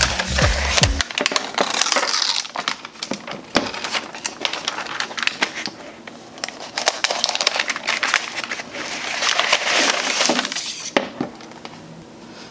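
Protective paper wrap rustling and crinkling as a laptop is slid out of its sleeve, with light handling clicks. Background music stops about a second in.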